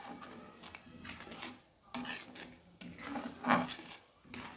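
A metal spatula scraping and clinking against a metal kadhai, with irregular strokes as it stirs hot sugar syrup.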